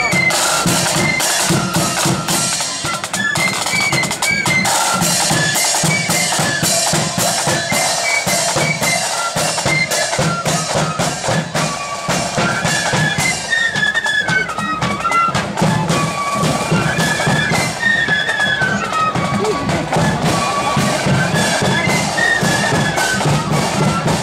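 Blood-and-thunder marching flute band playing: a melody on flutes over rapid snare drumming and a bass drum.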